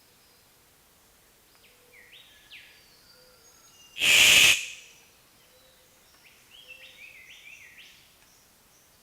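Birds calling in the open, with quick sweeping chirps in two short bouts. About four seconds in comes a loud, harsh burst lasting about half a second.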